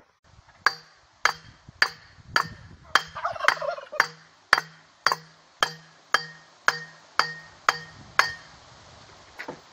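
A long steel pipe is pounded down again and again on a tapered roller bearing of a differential pinion, driving it into place. About fifteen sharp metallic clanks come at roughly two a second, each with a short ring, and they stop shortly before the end.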